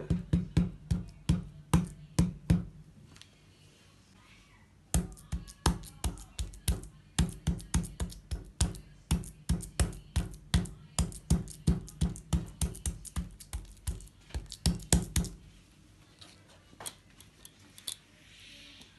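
Meat mallet with a ridged metal face repeatedly pounding boneless chicken flat on a plastic cutting board, about four dull knocks a second. A short burst of knocks comes first, then after a pause a longer run of about ten seconds. Near the end there are only a few light clicks as the pieces are handled.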